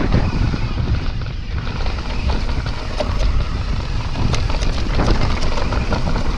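Mountain bike descending a dirt trail at speed: wind buffeting the handlebar-mounted camera's microphone over a low tyre rumble, with scattered clicks and rattles from the bike over bumps.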